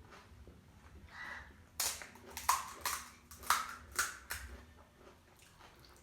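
Close-up eating sounds: a quick run of about six crisp crunches from bites of crunchy snack food, in the middle of the stretch, with softer chewing noises around them.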